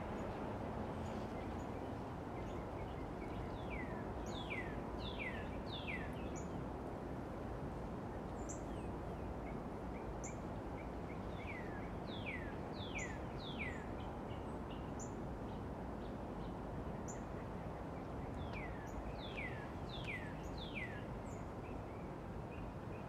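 A songbird singing phrases of three or four clear down-slurred whistles, each phrase repeated every few seconds, over a steady low background rumble.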